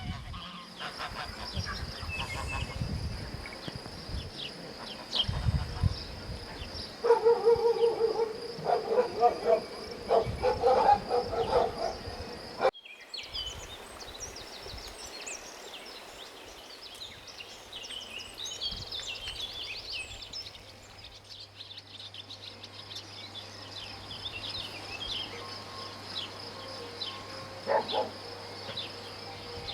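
Outdoor nature sound of insects and birds: a steady high insect-like trill and scattered bird chirps. Louder animal calls sound for a few seconds in the first half, and the sound cuts to a new stretch of chirping over a low hum about halfway through.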